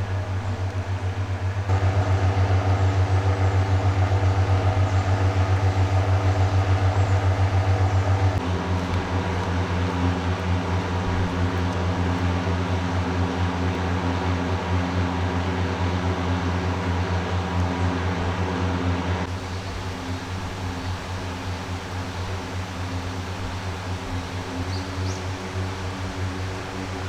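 Motorcycle engine running steadily under way, a deep hum with a fine rapid pulse. The pitch and level change abruptly a few times: about 2 s in, about 8 s in, and near 19 s in, where it drops a little quieter.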